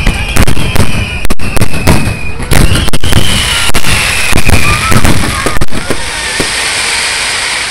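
A rapid barrage of aerial firework shells bursting overhead, loud bangs coming several a second, thinning out after about six seconds into a fading hiss.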